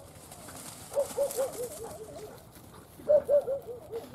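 Pointer dog giving short yelping calls in two rapid runs, about five a second, each run falling slightly in pitch; the first comes about a second in, the second about three seconds in.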